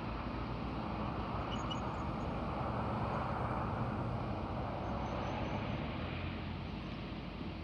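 A vehicle passing on a road: tyre and engine noise swells to a peak about halfway through, then fades. No siren tone is sounding.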